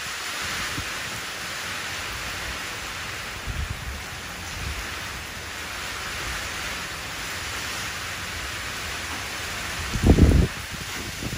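Steady rain falling into a shallow puddle, an even hiss of drops striking the water surface. About ten seconds in, a brief low rumble is the loudest moment.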